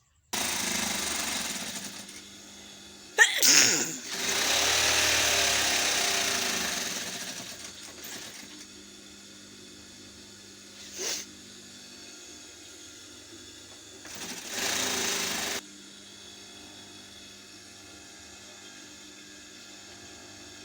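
Repeated sneezes: a sharp loud one about three seconds in that runs into a long noisy blast, a short one about eleven seconds in, and another about fourteen seconds in that cuts off abruptly, over a steady low hum.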